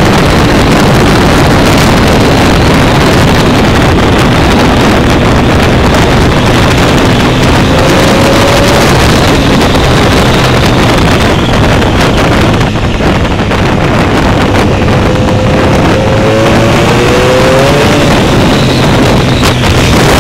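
Honda motorcycle engine running at road speed, heard from the rider's seat under heavy wind rush on the phone's microphone. It is loud and steady, with the engine note rising slightly a few times.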